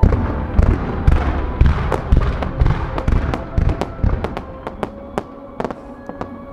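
A rapid barrage of fireworks fired from ground launchers: a sudden salvo of sharp bangs in quick succession, thinning to scattered pops over the last couple of seconds.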